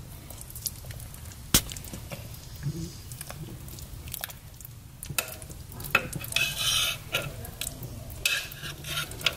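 Metal spoon stirring a thick oxtail stew in a slow cooker's crock. There is a sharp clink about a second and a half in, then stretches of scraping and clinking against the pot with wet stirring noises later on.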